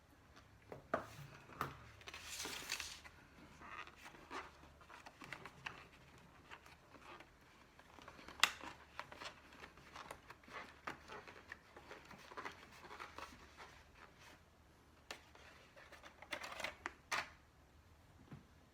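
Scattered small clicks, scrapes and rustles of takeout food packaging and bread being handled, with a longer rustle about two seconds in and a sharp click near the middle.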